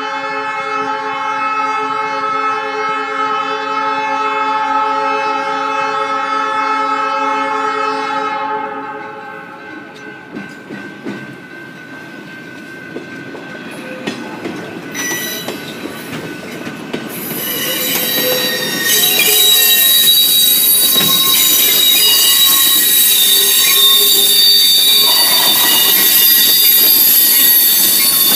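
Train horn sounding one long multi-note blast at a grade crossing, cutting off about eight seconds in. Then passenger cars roll over the crossing, and from about halfway on loud, high wheel-flange squealing rises over the rolling noise as the cars and the pushing diesel locomotive pass close by.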